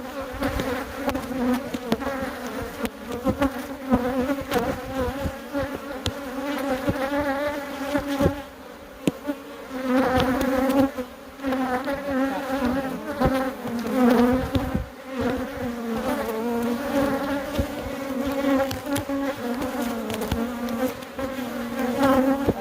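Honeybees buzzing around an open hive during an inspection: a dense, wavering hum that swells and eases in loudness. Short clicks and taps are scattered through it.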